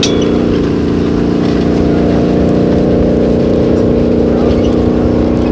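Steady engine drone holding one pitch, a race car's engine at sustained high revs heard from far down the course.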